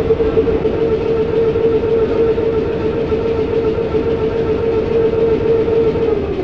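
Class 455 electric multiple unit heard from inside the passenger saloon: a steady traction motor whine over wheel and track rumble. The whine holds one pitch, then starts to fall at the very end as the train slows.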